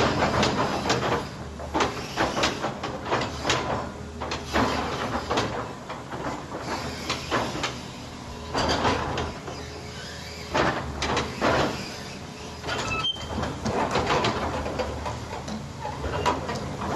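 Komatsu PC450-8 excavator working: its diesel engine runs steadily under repeated, irregular metallic clanks and scraping.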